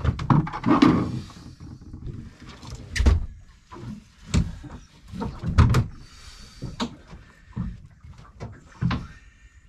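Irregular knocks, bumps and thumps of gear being handled against a boat's deck and fittings, the heaviest about three, five and a half and nine seconds in.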